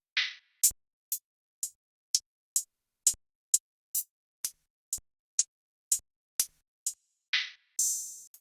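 Trap drum kit one-shot samples played one after another, about two a second with silence between them: mostly short, bright ticks, a couple of longer noisy snare-like hits, and a longer bright hiss just before the end.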